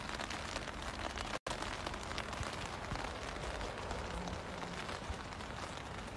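Steady rain falling on wet brick paving, a light even hiss, cut off for a moment about a second and a half in.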